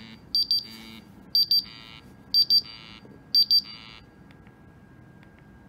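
MUNI 4-gas monitor's alarm beeping: quick pairs of high-pitched beeps about once a second, stopping about four seconds in, with its sensors still reading the calibration gas. A few faint clicks of its keys follow.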